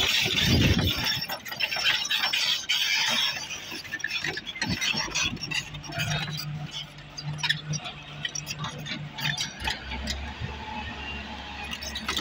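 JCB NXT tracked excavator digging stony soil: the steel bucket scrapes through earth, with stones and grit clinking against it, loudest in the first few seconds. Under it runs the low hum of the excavator's diesel engine, which drops lower near the end.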